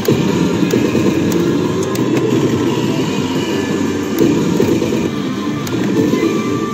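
Pachislot parlour din: many slot machines' music and effects blending into a loud, steady roar, with scattered sharp clicks as the reels are stopped.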